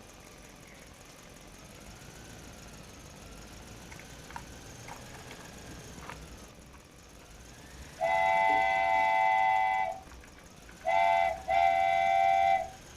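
Train horn sounding three blasts of a several-note chord about eight seconds in: one long blast of about two seconds, then a short one and a slightly longer one. Before it, only low background noise with a few faint clicks.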